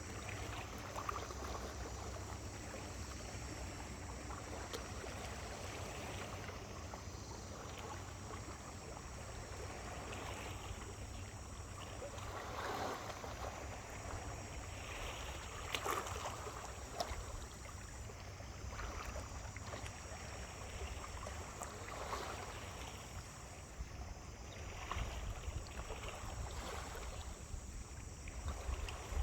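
Small waves lapping and splashing irregularly at the shore, over a steady low rumble.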